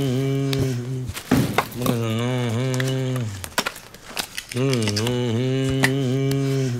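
A man's voice chanting in long held notes, like a mantra: three drawn-out phrases with a slight waver in pitch. Short clicks and knocks from the wall sander's parts being handled come between and under the notes.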